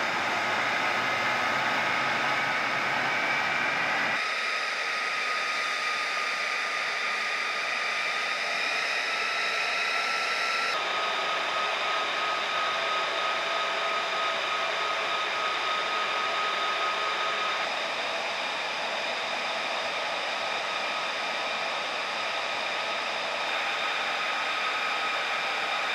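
F-35B Lightning II jet turbine running on the ground: a steady rushing whine with several high pitched tones over it. The sound changes abruptly about 4 and 11 seconds in.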